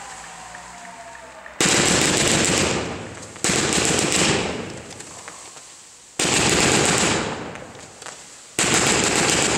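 Category 2 consumer fireworks bursting into crackling stars: four bursts of dense, rapid crackling about two to three seconds apart, each starting suddenly and dying away over a second or so.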